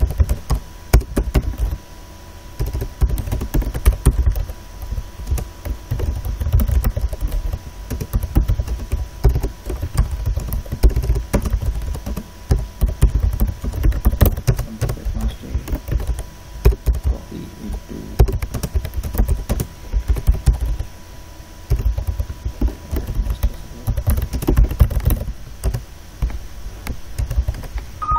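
Typing on a computer keyboard: quick runs of key clicks broken by short pauses every few seconds.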